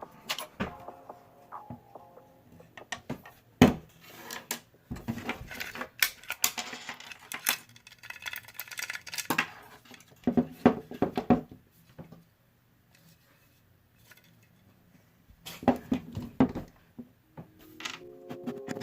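Irregular clicks, knocks and scrapes of metal and plastic parts as a VFC Avalon CQB Gen2 airsoft rifle is taken apart by hand, with a few seconds of near quiet about two-thirds of the way through.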